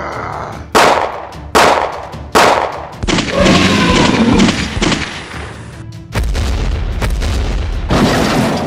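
Three sharp bangs under a second apart, then several seconds of dense crashing noise and a low rumble, with music underneath.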